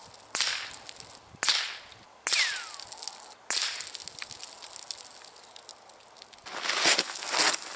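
Four shots from a Magnum Research semi-automatic .22 LR rifle, about a second apart and heard from the target end of a 100 m range. The third shot is followed by a short falling whine. Near the end comes a louder rush of noise from a gust of wind.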